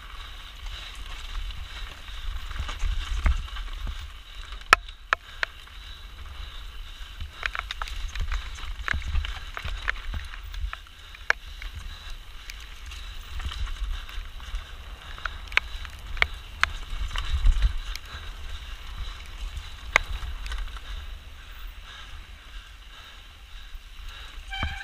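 Mountain bike descending a rough race trail at speed: a steady rush of wind and tyre noise, with many irregular sharp knocks and rattles as the bike hits bumps and rocks. A low rumble of wind buffets the action camera's microphone throughout.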